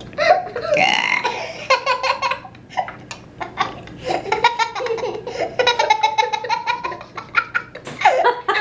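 A child burps loudly for about a second, then children laugh hard, a small boy's belly laughter among them.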